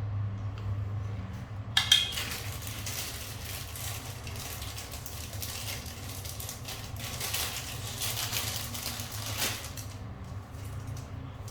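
A sharp metallic clink about two seconds in, followed by several seconds of scraping and rustling from metal tools and parts being handled, over a steady low hum.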